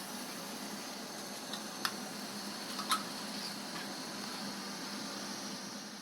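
Roasted vermicelli simmering in hot water in a pan: a steady bubbling hiss, with a few light clicks of the stirring spoon against the pan.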